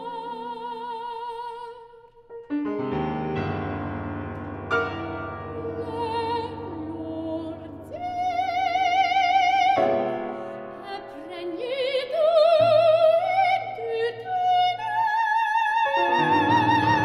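A woman singing in classical operatic style with a wide vibrato, accompanied by a grand piano, in a contemporary art song. The music breaks off briefly about two seconds in, then low piano chords come back under long held vocal notes.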